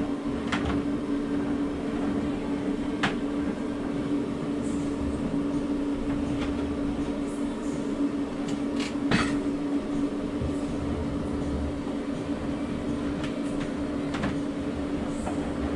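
Blower fan of a homemade extra-oral HEPA suction unit running steadily, pulling air through a flexible hose and hood: an even rushing noise with a steady hum. A few brief clicks from the hose and hood being handled.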